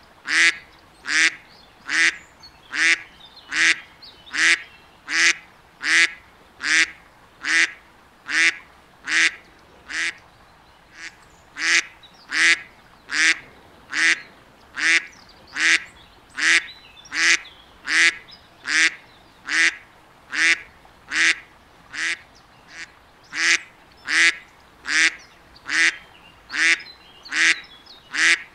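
A duck quacking over and over at a very even pace, a little more than one quack a second, with one short break about ten seconds in.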